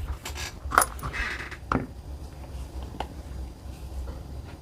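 Small metal parts and tools being handled on a workbench: a few light, separate metallic clicks and clinks over a low hum.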